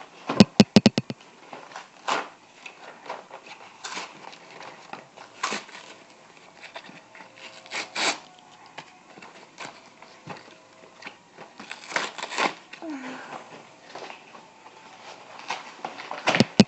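Toy packaging being handled and worked open: irregular rustling, crinkling and tearing, with a quick run of sharp clicks about half a second in and scattered snaps after.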